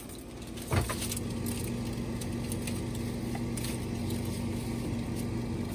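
A knock about a second in, then a steady hum from the open refrigerator-freezer, with faint clicks and scrapes as a foil-covered ice cube tray is pushed onto its wire shelf.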